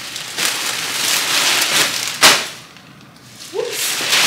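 Packaging rustling and crinkling as clothes are pulled out and unpacked, with one sharp, loud crackle about two seconds in before it quietens briefly.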